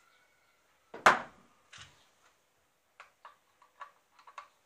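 Knocks and light clicks of guitar parts being handled on a workbench while the neck, its screws and bushings are being taken off. There is one sharp knock about a second in and a softer one just after, then a quick run of small clicks and taps.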